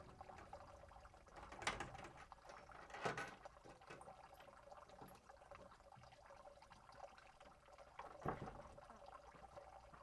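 Wooden plank door being handled: quiet clatter with three sharper wooden knocks, about two seconds in, three seconds in and near the end.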